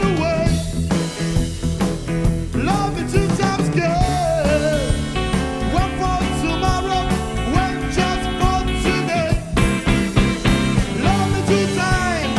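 Rock band playing an instrumental break, with a lead line whose notes bend up and down over bass and drums.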